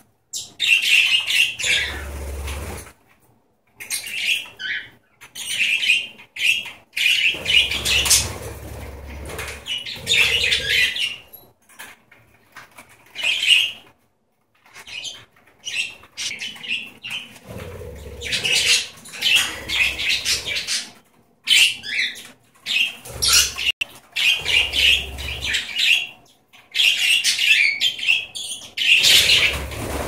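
A small flock of budgerigars flapping their wings and chattering, in bursts of a second or two with short pauses between.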